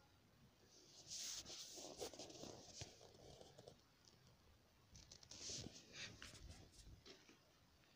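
Faint scratching and rustling in two short spells, one about a second in and one about five seconds in, with a few light clicks.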